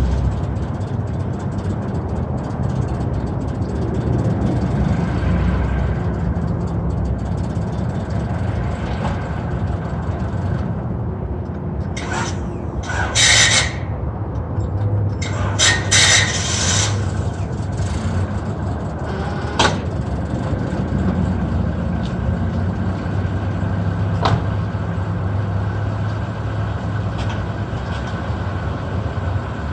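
Engine running steadily with a low hum, interrupted by a few short bursts of hissing about twelve to seventeen seconds in.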